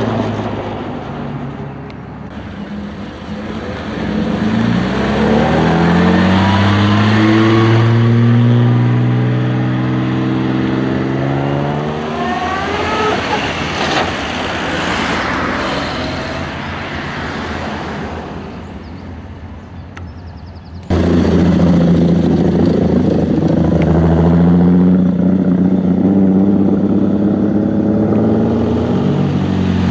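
Vintage cars driving past one after another, their engines running under load with the engine note rising and falling as they accelerate away. About two-thirds of the way through, a louder engine cuts in suddenly.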